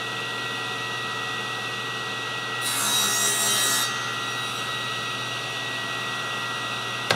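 SawStop table saw running at speed with a steady whine. From about two and a half seconds in, for just over a second, the blade crosscuts a strip of wood fed on the miter gauge, adding a louder, hissing cut before it goes back to the plain running whine.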